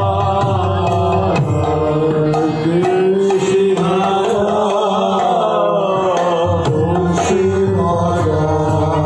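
Devotional chanting music: a voice singing a held, gliding melody over drum and a steady ticking percussion beat.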